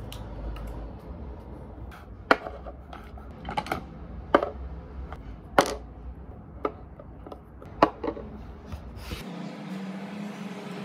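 Glass nail polish bottles being set down one by one on a tabletop: about seven sharp clinks and knocks, irregularly spaced, over a low steady hum that stops about nine seconds in.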